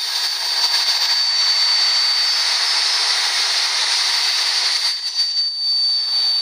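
GM 3800 Series II V6 running with a really loud, steady high-pitched whistle over the engine's hiss. The whistle is a vacuum leak at the upper intake manifold gasket.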